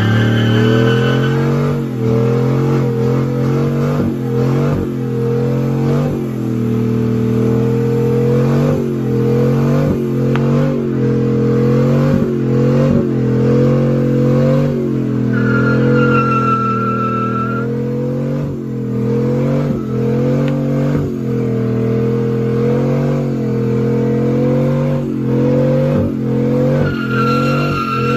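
Chevrolet Silverado pickup doing a burnout: the engine is held at high revs that waver up and down, while the spinning rear tire squeals in stretches near the start, in the middle and near the end.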